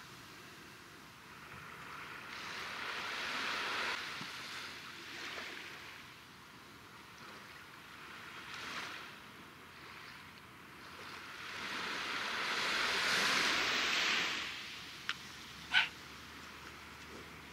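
Small waves washing onto a sandy shore, the hiss swelling and fading in several surges. Two brief clicks come near the end.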